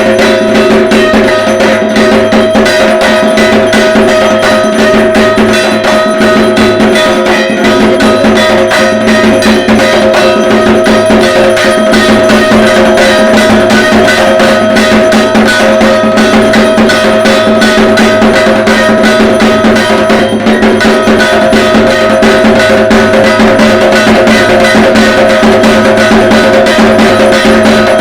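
Dhak, the large Bengali barrel drums of Durga Puja, beaten in a fast, unbroken rhythm, with a steady metallic ringing over the strokes.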